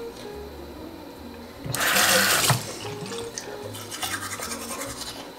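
Soft background music with a steady bass line; about two seconds in, a brief rush of toothbrush scrubbing lasting under a second is the loudest sound.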